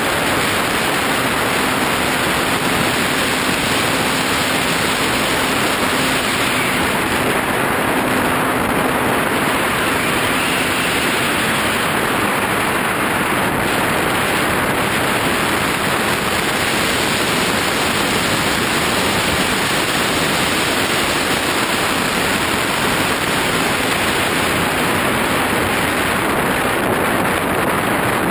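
Steady rush of wind over a camera riding on a model airplane in flight, with a faint steady hum, likely from its motor, for about the first ten seconds.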